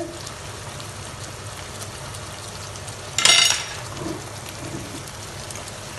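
Sliced onions and bell peppers frying in a wok: a steady, low sizzle with small crackles. A brief, louder rush of noise comes about three seconds in.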